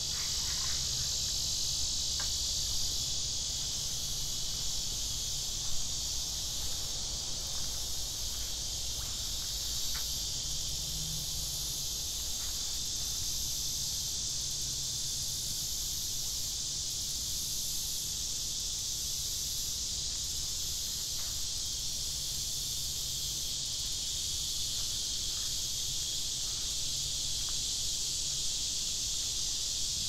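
A dense chorus of insects buzzing in a steady, high-pitched drone, with a faint, even pulsing in its highest notes.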